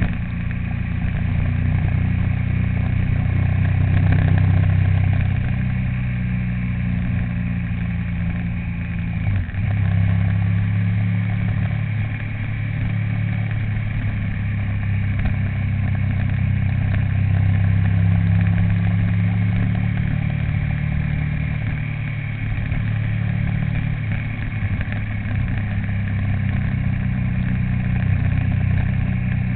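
Vehicle engine running steadily while driving along, with a low hum that wavers slightly in pitch and dips briefly about nine seconds in.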